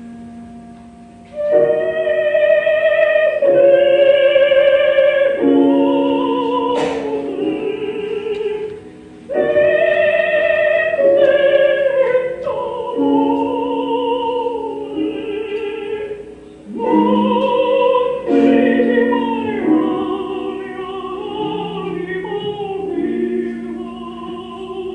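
Classical operatic singing from an aria: a trained voice holds long notes with vibrato in three phrases, each swelling in after a short quieter pause.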